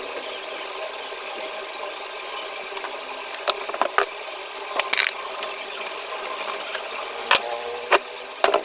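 Several sharp metallic clicks and clinks of parts being handled, over a steady hum. The clicks come from about midway on, a few of them louder.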